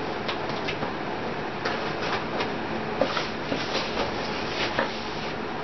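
A cardboard shipping box being opened by hand: scattered short scrapes, rustles and clicks of cardboard and packing tape at irregular intervals, over a steady background hiss.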